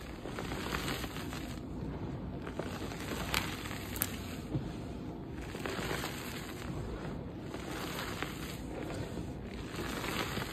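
Dry, dusty dyed gym chalk blocks and reforms being crushed and crumbled, a steady dense crunching and crackling of breaking chalk with a few sharper snaps around the middle.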